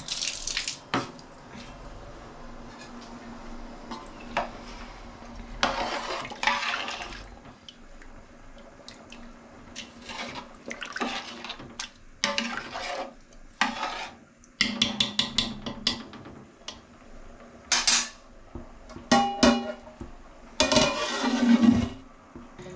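A long steel ladle stirring and scraping in a large aluminium pot of rice, chicken and water, with repeated metal clinks and sloshing. Near the end an aluminium lid clatters onto the pot.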